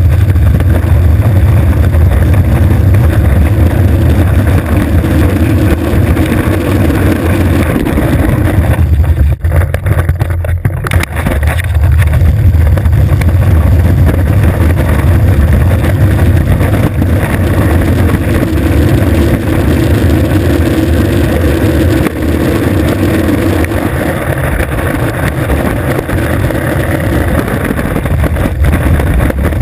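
Skateboard wheels rolling over asphalt, a loud, steady rumble heard from a camera on the board itself. It eases briefly about nine seconds in, then picks up again.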